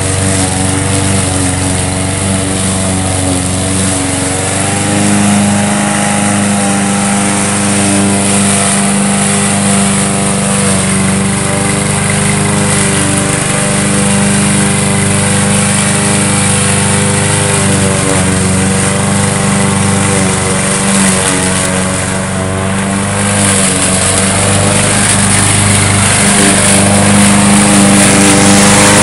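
Small gasoline push-mower engine on a homemade radio-controlled mower, running steadily with its pitch wavering slightly, growing louder near the end.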